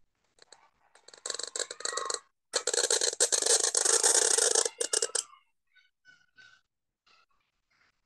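Reed pen (qalam) scratching across paper as a long ink stroke is drawn: a dry, rasping scratch that starts about a second in, grows loud for a few seconds, then stops. A few short, faint scratches follow near the end.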